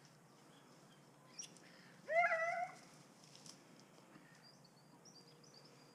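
A dog, one of the working lurchers, gives one short high whine about two seconds in, rising at the start and then held for about half a second. Faint bird chirps follow later.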